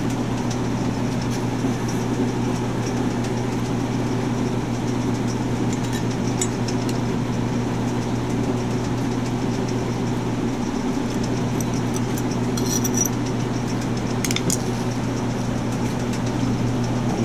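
Steady low machine hum, like a motor or fan running, with a few faint light clicks of a screwdriver working the small screws of a carburetor's throttle butterfly.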